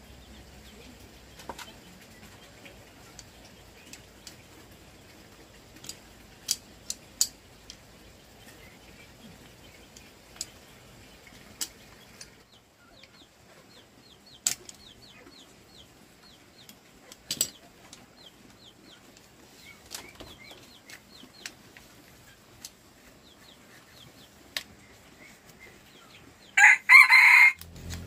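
A chicken calls loudly about a second before the end. Before that, sparse light clicks and taps over a faint background, with faint high chirps in the middle.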